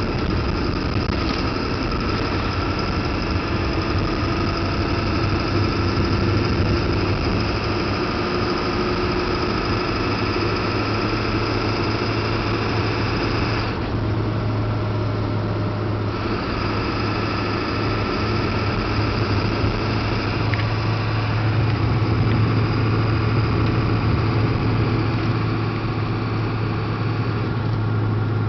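7.3-litre V8 diesel truck engine running steadily under way, a continuous drone with a strong low hum; a higher whine drops out for a couple of seconds midway and then returns.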